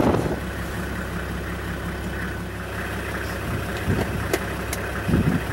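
Safari vehicle's engine idling steadily, a low even hum, with a couple of faint clicks near the end.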